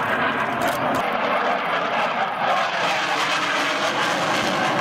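Mikoyan MiG-29 fighter's twin Klimov RD-33 turbofans passing in flight: a loud, steady jet engine noise that grows sharper in tone about halfway through.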